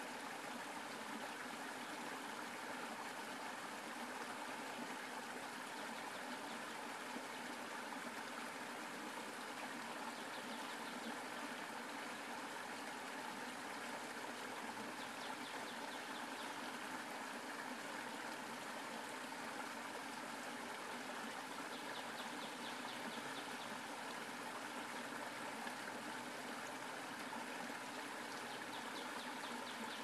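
Small creek running steadily, water rushing over a shallow riffle.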